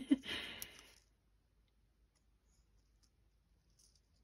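Brief soft rustling and clicks of small paper banner pieces being shifted about in a hand, in the first second, then near silence: room tone.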